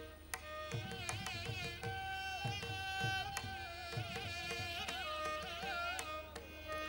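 Indian classical-style background music: a melody of wavering, gliding notes over a steady drone, with repeated hand-drum strokes.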